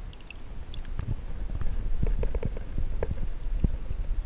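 Water sloshing and splashing at the surface as a released redfish kicks free and swims off. It comes as a run of irregular gurgles and knocks, thickest in the middle, then settles.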